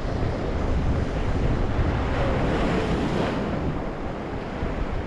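Ocean waves surging and washing over coastal rocks, with wind buffeting the microphone; one wave swells up loudest about two to three seconds in.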